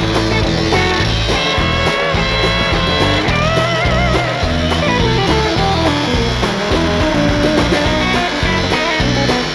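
Rock music with electric guitar over a steady drum beat; a guitar note bends with vibrato about four seconds in.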